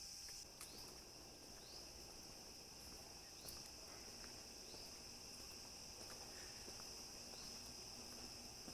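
Faint, steady high-pitched drone of rainforest insects, with a short rising chirp repeating every second or two.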